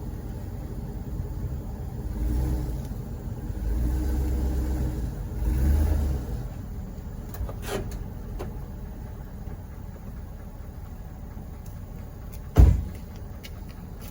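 Truck engine running at low speed, rising in level three times in the first half as the truck is backed up to the boat trailer. A single sharp thump near the end.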